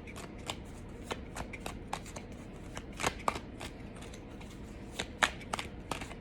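Tarot cards being shuffled and handled by hand: a run of quick, irregular card snaps and flicks.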